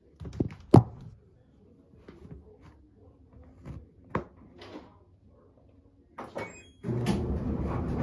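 Knocks and clunks from handling an LG front-load washing machine, the loudest under a second in and another about four seconds in. A little after six seconds there is a short run of electronic beeps stepping down in pitch, then a loud steady noise takes over about seven seconds in.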